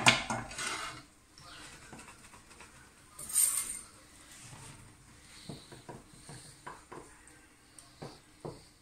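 Cookware clatter: a sharp clink at the start and a brief scrape about three seconds in, then a wooden spatula lightly tapping and stirring egg mixture in a small frying pan.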